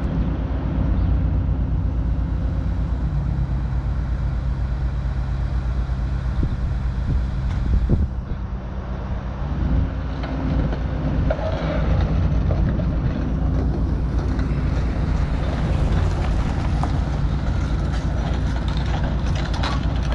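Heavy diesel engine running, its pitch stepping up and down several times as it changes speed, with scattered clanks in the second half.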